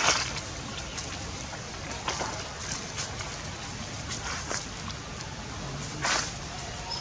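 Steady outdoor background hiss with a few short rustling crackles, the loudest right at the start and about six seconds in.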